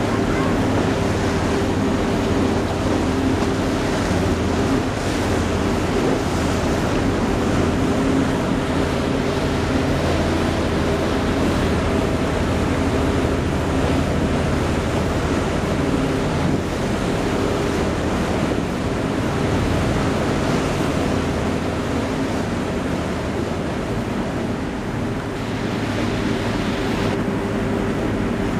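Steady low engine hum from a boat under way, mixed with water rushing and wind buffeting the microphone.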